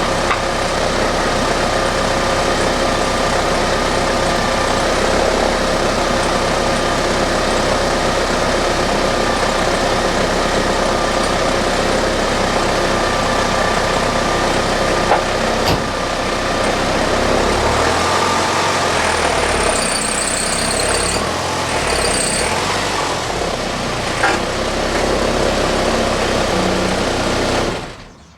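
1993 Porsche 968's 3.0-litre four-cylinder engine running at low speed as the car is driven onto ramps, with two short high squeaks about two-thirds of the way in. The engine is switched off just before the end and the sound cuts off suddenly.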